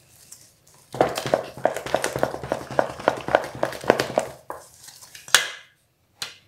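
Wooden spoon stirring a wet, sticky bread dough in a stainless steel bowl: a quick run of scraping and knocking against the metal. A sharper knock comes about five seconds in, and a short one follows just before the end.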